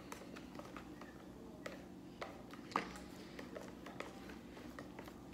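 Plastic spoons stirring slime in plastic mixing bowls: faint, scattered clicks and taps over a low steady hum.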